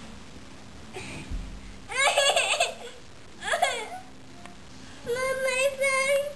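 A toddler laughing in two short bursts, about two and three and a half seconds in, then a long held vocal note starting about five seconds in.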